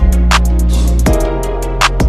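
Background music with a steady drum beat over a held bass.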